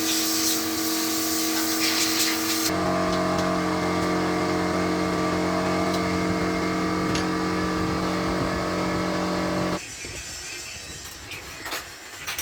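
Steady hum of a motor-driven workshop machine, with a loud hiss over it for the first three seconds or so. The machine cuts off abruptly near the end, leaving a few faint knocks.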